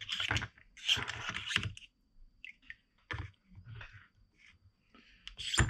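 Metal parts soaking in a plastic tub of rust-remover solution being prodded and pushed around with a screwdriver: irregular scrapes and clinks of metal against metal and the tub, with a sharper click near the end.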